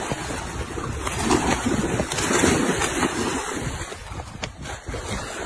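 Loud, irregular rushing and rumbling of wind and handling noise on a phone microphone as the phone is moved quickly.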